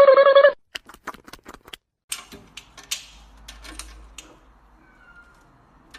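A cat's drawn-out meow that ends about half a second in, followed by a quick run of sharp clicks and then scattered taps and light clatter.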